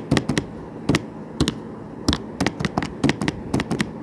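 Calculator keys pressed in quick, irregular succession: a string of sharp plastic clicks, several a second, as a sum is punched in.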